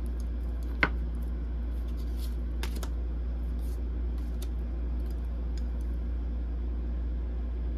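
Steady low hum of room tone, with a sharp tap about a second in and a few faint ticks and rustles of tarot cards being handled.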